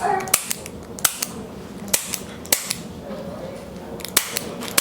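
Spring-loaded chiropractic adjusting instrument (activator) firing on the back, a dozen or so sharp clicks, often in quick pairs about a second apart.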